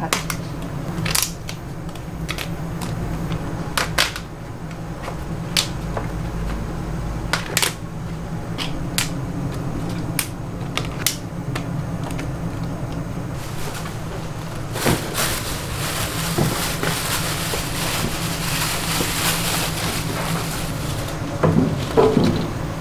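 Food-stall cooking sounds: irregular sharp knocks and clicks of utensils over a steady low hum, with a hiss starting about two-thirds of the way in and stopping shortly before the end.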